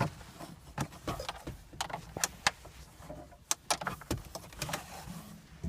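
Irregular clicks, knocks and rattles of hand work in a car's dashboard around the radio, with hard plastic and metal parts being handled.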